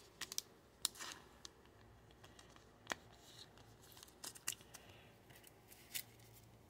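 Glossy chrome trading cards being handled and flipped through by hand: a scatter of small sharp clicks and slides as the stiff cards are moved one behind another.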